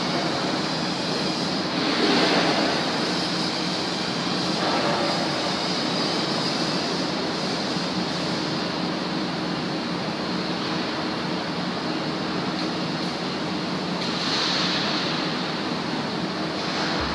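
Steady loud rushing noise of a hot-dip galvanizing plant around the flux and zinc tanks, swelling a few times.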